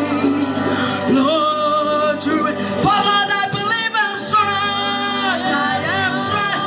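Church choir singing a worship song over instrumental backing, with long held sung notes.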